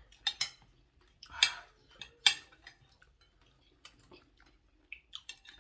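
Cutlery clinking against bowls while people eat soup. Several sharp clinks come in the first two and a half seconds, then only a few faint taps.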